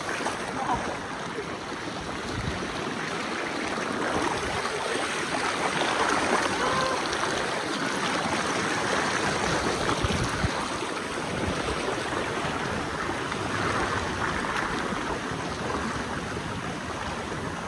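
Steady, even rush of water from a forest waterfall and its stream.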